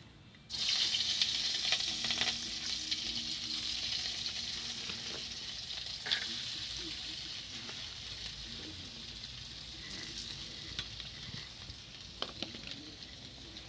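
Sliced green chillies and garlic sizzling in hot oil in a kadai. The sizzle starts suddenly about half a second in and slowly dies down, with a few light clicks along the way.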